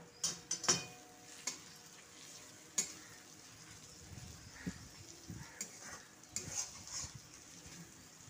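Spatula stirring and scraping chopped onions and green chillies frying in a metal kadai (wok), with a soft sizzle of the oil. Sharp scrapes and knocks of the spatula against the pan come at irregular moments, several in the first second and a cluster between about five and seven seconds in.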